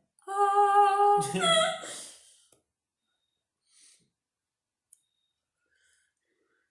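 A person's voice imitating an animal call: one held note for about a second that then rises and wavers before dying away.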